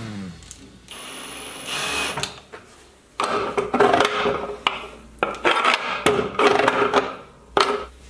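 A cordless drill runs briefly about a second in. After that, a steel slide bolt with a twisted rod is worked back and forth in its chrome housing, scraping and ringing with several sharp clacks, and shoots home with a last clack near the end.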